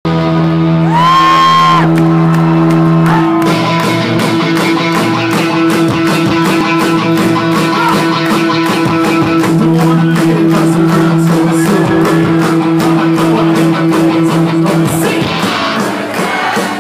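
Rock band playing live in a club, loud: a held note slides up about a second in over sustained guitar, then drums come in with a steady beat about three seconds in. The held chords drop away near the end.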